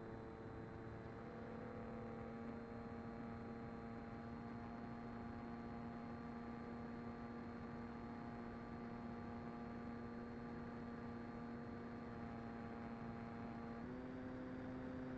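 Mini Talon model plane's electric pusher motor and propeller heard from the onboard camera, a steady whine with several overtones. The pitch steps up slightly near the end as the throttle is opened a little.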